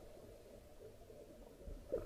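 Faint underwater hush in the pause between a scuba diver's regulator exhalations, with a brief faint rise near the end.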